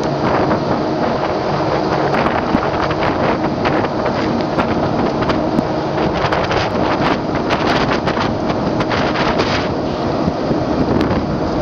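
Wind buffeting the microphone over steady water splashing and lapping against a small boat's hull, full of rapid small splashes.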